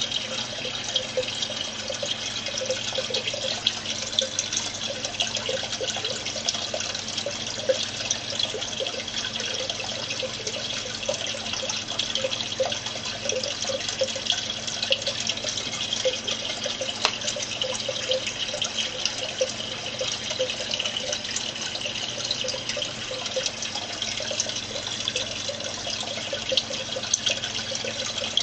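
Aquarium water bubbling and trickling steadily, a dense patter of small pops over a low steady hum.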